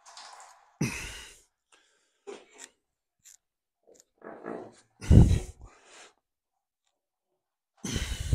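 Short breaths and grunts of effort, with a few light clicks, as a bare Chevy 350 small-block engine is rotated upside down on an engine stand.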